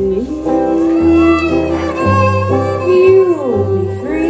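Live acoustic string-band music with no singing: a fiddle plays a melody with sliding notes over acoustic guitar and plucked upright bass notes that change about once a second.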